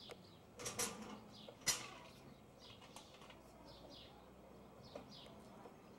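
A broom handle knocking against a corrugated metal gate, two sharp knocks about a second apart, then a few faint taps, with birds chirping in the background.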